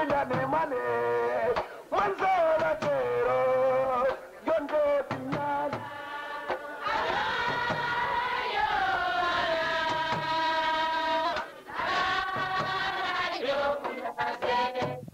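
Music with a solo voice singing long, ornamented held lines over instrumental backing, with a short break in the singing about twelve seconds in.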